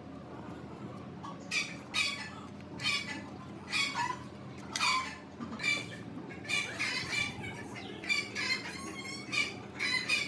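A bird squawking in a run of short, sharp calls, roughly one or two a second, starting about a second and a half in, over a steady low background hum.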